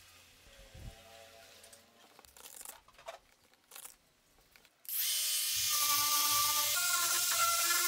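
Faint handling sounds as a hook-and-loop sanding disc is fitted to its pad, then an electric angle grinder with a sanding disc starts abruptly about five seconds in and runs steadily, sanding a wooden board, its motor whine shifting in pitch under load.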